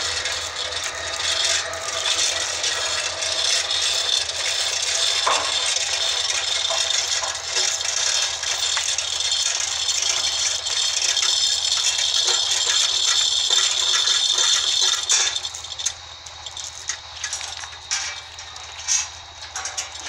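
Heavy steel chains rattling and clinking against each other and the log as they are pulled around it. A continuous clatter about three-quarters of the way through drops to scattered single clinks.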